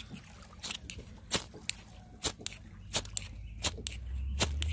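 Ferrocerium rod being struck repeatedly with a striker, about a dozen short sharp scrapes, two or three a second, throwing sparks onto a wax-infused fire starter to light it. A low rumble builds near the end.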